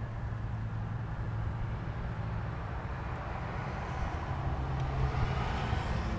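Steady low rumble of a motor vehicle with a constant low hum, swelling slightly about five seconds in.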